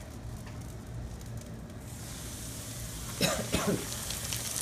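Battered fish frying in hot oil in a skillet; the sizzling starts about two seconds in as the fish goes into the grease. A short cough about three seconds in.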